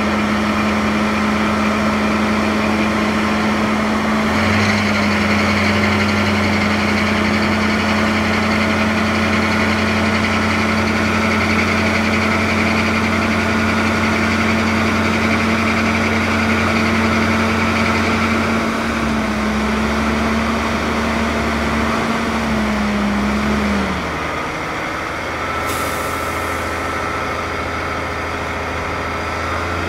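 Heavy dump truck diesel engine running steadily; its note rises a little about four seconds in, then drops back lower and quieter near the end. A short hiss of air, like an air brake, follows the drop.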